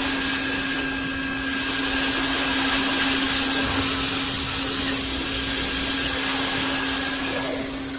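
CNC beam drilling machine at work: a steady hum under a loud hiss, dipping briefly about a second in, easing a little near five seconds, then fading toward the end.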